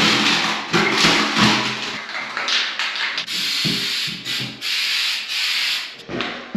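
A hand rubbing Flex Seal tape hard onto the inside wall of a plastic water tank, a rough scraping rub in several long strokes. The tape is being smoothed down over a crack to stop a leak.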